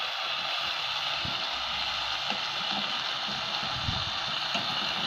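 Greens and tomato sautéing in a steel pan over a wood fire: a steady sizzling hiss as they are stirred with a spatula.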